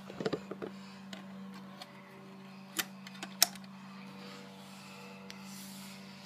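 A quick cluster of small knocks in the first second, then two sharp clicks about three seconds in, the second the loudest, over a steady low hum.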